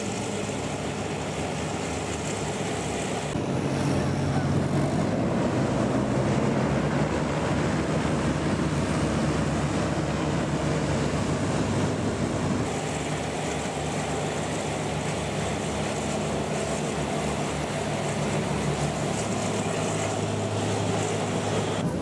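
Hovercraft running: a steady drone of its engines and ducted propellers with a rush of air, getting louder about three and a half seconds in.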